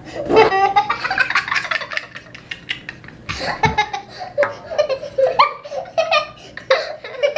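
Young children laughing hard, a toddler boy breaking into belly laughs in several fits.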